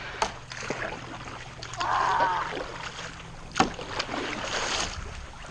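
Paddle strokes splashing in lake water as a paddleboard is paddled toward a dock, with a sharp knock about three and a half seconds in.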